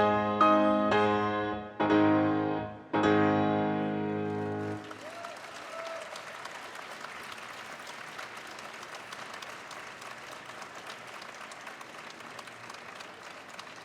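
Piano playing the closing chords of an opera aria accompaniment, four or five struck chords that stop about five seconds in, followed by steady audience applause.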